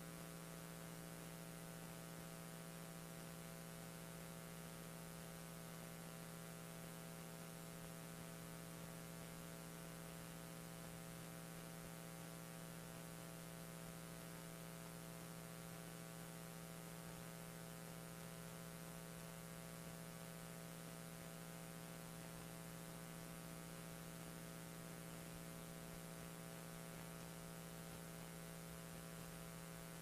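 Steady electrical mains hum with a hiss beneath it.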